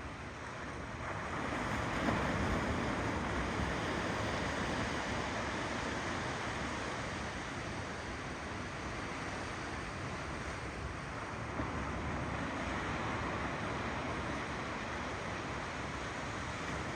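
Ocean waves rolling in and washing over the shore as a steady rush of surf, swelling louder about two seconds in.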